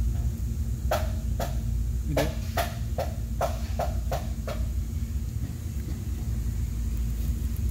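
A tool tapping and prodding at wiring and a plastic connector, about nine light clicks over three or four seconds, coming a little faster toward the end, over a steady low rumble with a faint hum.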